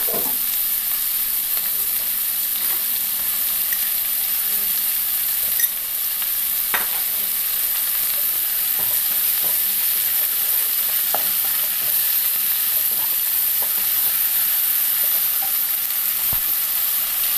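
Sliced onions sizzling steadily in hot ghee and oil in a non-stick pan, stirred with a wooden spatula, which knocks against the pan in a few short clicks.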